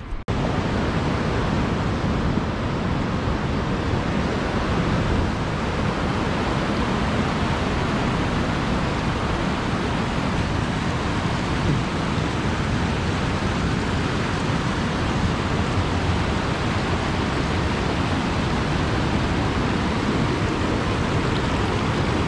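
Steady rush of a fast-flowing mountain stream, an even noise that starts abruptly and holds without change.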